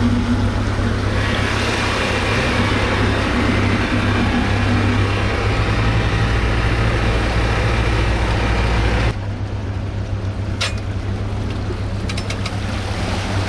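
An engine running steadily under a loud rushing noise. The rushing stops abruptly about nine seconds in, leaving the engine's low hum.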